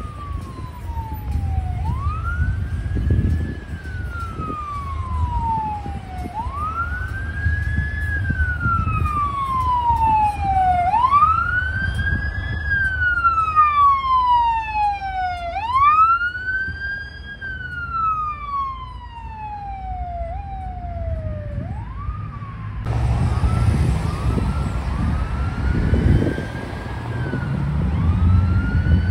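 Emergency vehicle siren wailing, each cycle rising quickly and falling slowly, about every four to five seconds, with a second siren overlapping in the middle. Passing traffic rumbles underneath. Near the end the sound changes abruptly to a fainter siren over louder road noise.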